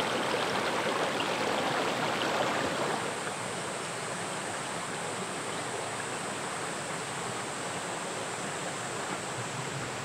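Mountain valley stream, a steady rush of flowing water that dips a little in level about three seconds in.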